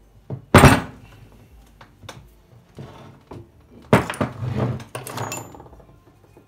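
Heavy steel parts of a LOMO Kinap 4A32 loudspeaker's magnet assembly clanking together on a wooden workbench. A loud metallic clank about half a second in, as steel snaps onto the strongly magnetized core magnet, then a run of knocks and scrapes around four to five seconds in as the parts are moved.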